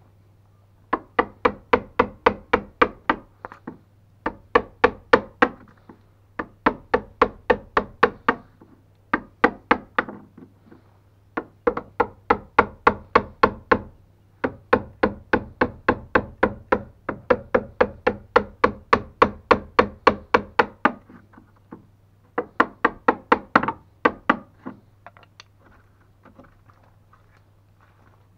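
A wood chisel being tapped in quick, sharp strikes, about four or five a second, in runs of a few seconds with short pauses, cutting a notch in a timber stringer.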